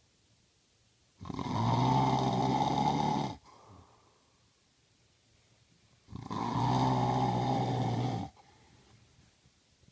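A man snoring: two long snores about five seconds apart, each lasting about two seconds, with a low buzzing pitch, and near quiet between them.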